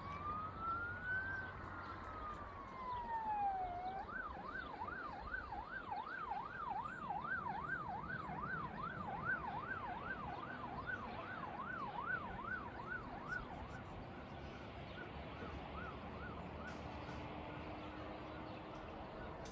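An emergency vehicle siren sounding over the town: a slow rising and falling wail that switches about four seconds in to a fast warble of about two cycles a second, then fades away over the last few seconds.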